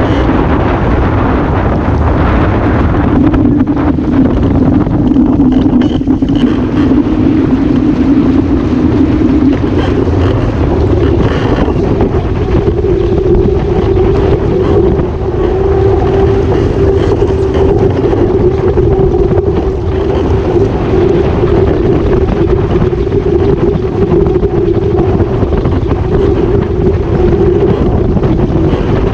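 Waszp foiling dinghy under way: a steady hum from its foils, rising in pitch about ten seconds in and holding there, over loud wind buffeting on the microphone and rushing water.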